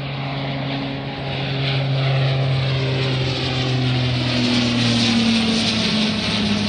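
Saab 2000 turboprop airliner's engines and propellers at takeoff power: a loud, steady propeller drone whose hum slowly falls in pitch as the aircraft goes by, growing louder about two seconds in.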